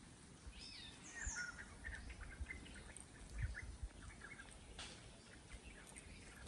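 Birds chirping and calling, with a quick cluster of short chirps and whistles in the first half, over a low wind rumble on the microphone.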